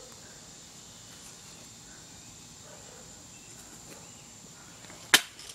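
Faint outdoor background with a steady, thin, high insect whine, broken about five seconds in by one sharp, loud snap of an airsoft rifle firing.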